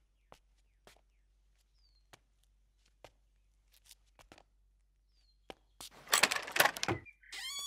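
Soft, sparse footsteps on a bare floor, single light steps spaced apart, then about six seconds in a loud wooden rattling and clattering as a door is pushed. Near the end a swooping, wavering tone starts and leads into music.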